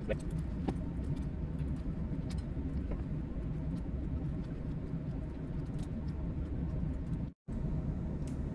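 Steady low drone of a ship's machinery, with a few faint clicks and taps of a cable connector and metal antenna fittings being handled. The sound cuts out for a split second near the end.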